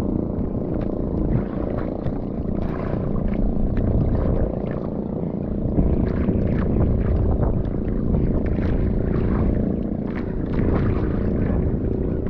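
Motor of a small fishing boat (bangka) running steadily: a continuous low drone.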